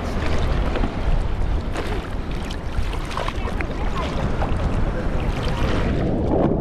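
Ocean water sloshing and splashing right at a waterproof action camera held at the surface, with wind buffeting the microphone and small scattered splashes. The sound goes duller near the end.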